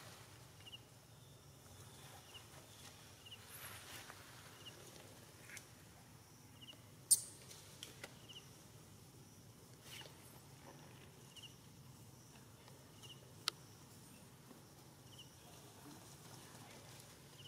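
Faint outdoor ambience: a short high chirp repeats about every one to two seconds, with a few sharp clicks, the loudest about seven seconds in.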